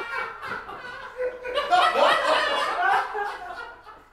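Two men laughing hard together, softer at first, loudest about halfway through, then dying away near the end.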